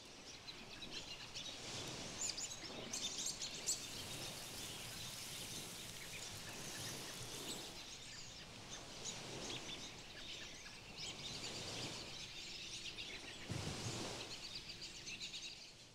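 Birds chirping and singing over a steady outdoor background hiss, with a brief louder noise about two seconds before the end.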